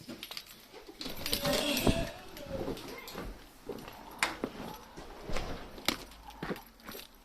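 Car keys jangling and being handled, followed by scattered sharp clicks and knocks.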